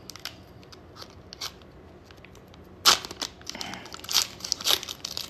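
Foil wrapper of a basketball trading card pack being torn open and crinkled by hand: faint rustling at first, then a sharp crackling tear about three seconds in, followed by more crinkling.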